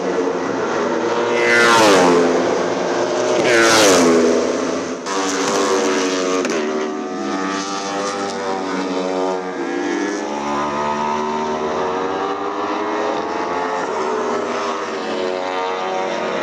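Aprilia-engined Wolf Thunder prototype race car at high revs, passing close twice, about two seconds in and again near four seconds, each pass a loud sweep that drops in pitch. Afterwards a steadier, more distant engine note that rises and falls in pitch.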